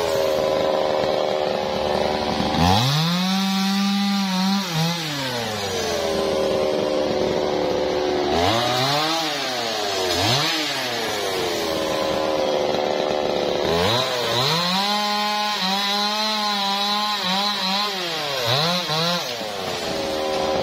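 Stihl MS 381 two-stroke chainsaw idling between repeated bursts of full throttle. It revs up several times, and in the second half it holds a longer spell of high revs whose pitch dips and recovers as the chain cuts into a small tree trunk.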